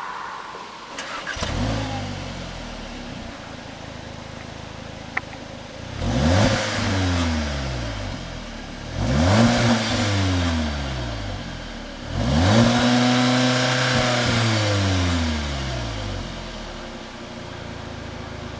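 Seat Leon Cupra's 2.0 TSI turbo four-cylinder through a non-resonated Baq Exhaust cat-back with the particulate filter kept, idling and revved three times, each rev rising and falling back to idle, the third held longest.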